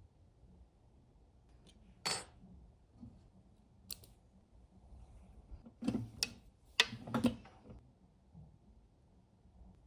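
Small metal parts and hand tools being handled: a few sharp clicks and clinks, one about two seconds in, and a louder cluster of several around six to seven seconds.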